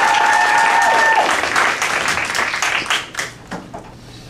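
Audience applauding, with one long held shout over the first second; the clapping thins out and dies away after about three seconds.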